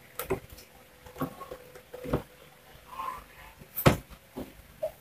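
Scattered light plastic clicks and knocks from the blender's housing and push-button panel being handled and fitted by hand, the sharpest knock nearly four seconds in.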